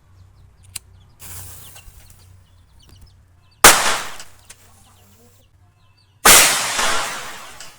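Homemade match-head firecrackers going off: two sharp bangs about two and a half seconds apart, each trailing off in a hiss over about a second. A shorter, quieter hiss comes about a second in.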